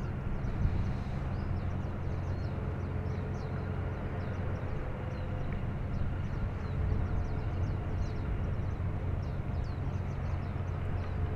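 Low, steady drone of a passing container ship's engine, made of several steady hum tones, with small birds chirping repeatedly over it.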